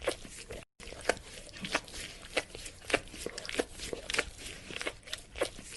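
Irregular crunching and clicking sounds, a few a second, cut off briefly about a second in.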